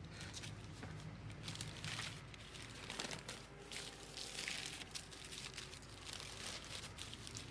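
Paper and cellophane wrapping crinkling and rustling in short irregular bursts as it is unfolded by hand.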